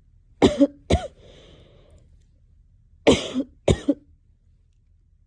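A young woman coughing: two pairs of short, sharp coughs, the second pair about two and a half seconds after the first.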